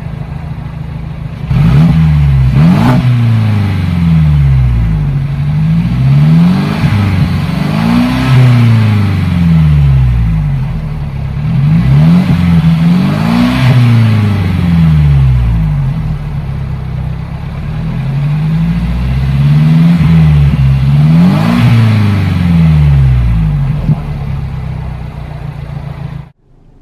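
2017 Mercedes-Benz SLC200's turbocharged four-cylinder engine heard from the tailpipes with the car standing still, idling and then revved repeatedly in Sport Plus mode: about seven rises and falls in engine speed, each quickly back toward idle. The sound cuts off abruptly near the end.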